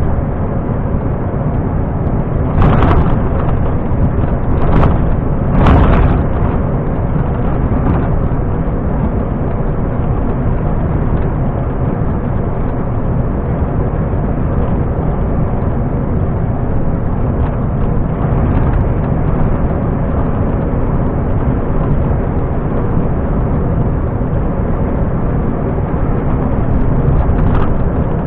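Steady engine and road noise inside a Volvo FM 370 truck cab cruising at highway speed. There are a few dull thumps about 3, 5 and 6 seconds in and again near the end.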